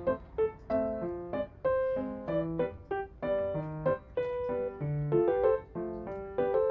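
Background music: a bright piano melody of quick notes, several a second, over a plain bass line.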